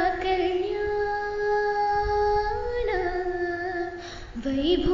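A woman singing a Carnatic devotional wedding song, drawing out the vowels in long held notes with small ornamental turns between them. There is a brief break about four seconds in before the next phrase begins.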